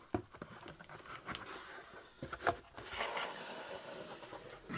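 Cardboard shipping box rustling and scraping as a shrink-wrapped hardback book is worked out of it by hand, with scattered light taps and knocks and a longer rustle near the end.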